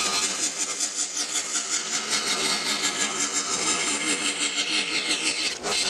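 Scroll saw running, its fine reciprocating blade cutting through a thin wooden panel with a steady, fast, even pulsing; the sound dips briefly near the end.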